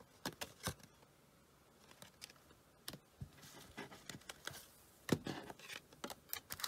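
Faint handling of trading cards: light taps and clicks as a stack of cards is set down on a wooden table, with a few soft rustles.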